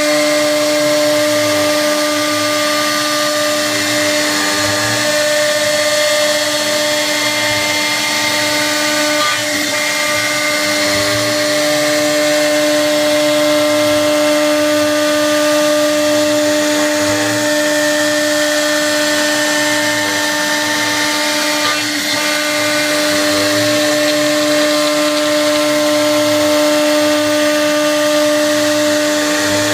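CNC router spindle milling a block of acrylic: a steady high whine with the hiss of the cutter, running without a break.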